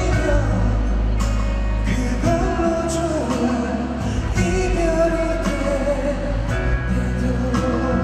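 Live pop performance: a male voice singing a slow melody over band accompaniment with a steady bass line and occasional percussion strikes.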